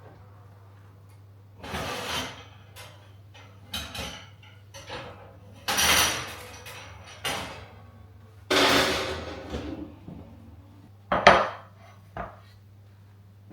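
Metal Yorkshire pudding tins clattering and scraping as they are lifted out of a hot oven and set down: a string of separate knocks and scrapes, the loudest in the middle and a sharp knock near the end, over a steady low hum.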